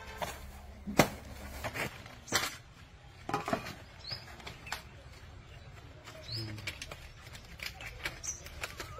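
Stiff palm fronds rustling and swishing as they are handled and gathered into a bundle, with several sharp crackles from the leaves in the first few seconds.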